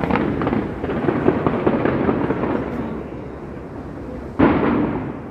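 Fireworks bursting overhead: a sharp bang followed by about three seconds of dense crackling pops, then another loud bang near the end.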